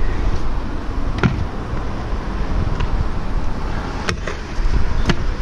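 Stunt scooter wheels rolling over rough concrete with a steady low rumble, broken by a few sharp knocks as the scooter hits down: one about a second in, and two more near the end as it goes onto and off a ledge box.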